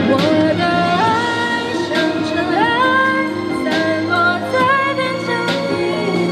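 A woman singing into a handheld microphone over instrumental accompaniment, her voice sliding up into long held notes, with drum hits and a steady bass line underneath.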